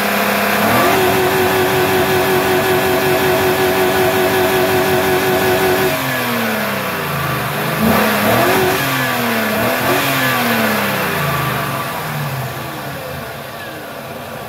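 5.3-litre V8 truck engine revved up and held against the rev limiter for about five seconds, its level fluttering rapidly, then let off, blipped twice more, and dropping back toward idle.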